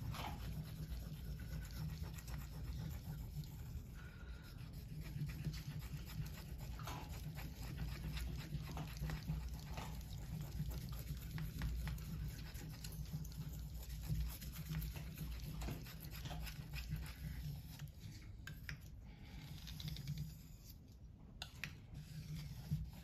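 Steel Opinel knife blade rubbed back and forth flat against a wet 5000-grit Shapton Kuromaku whetstone: quiet, irregular scraping strokes, over a steady low hum.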